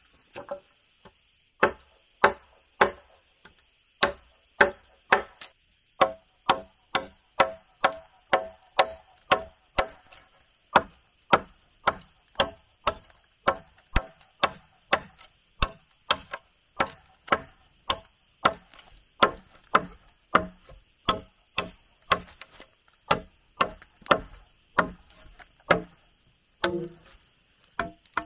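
Hand tool striking wood in a steady rhythm, about one and a half hard blows a second, some with a short ringing knock, over a faint steady high-pitched drone.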